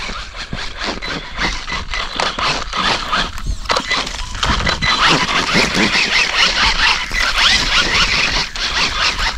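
Axial RYFT RC rock bouncer's Pro-Line Black Mamba tyres spinning and digging into loose sand. It makes a dense, scratchy crackle of sand and debris spraying and scraping over dry roots, louder from about halfway through.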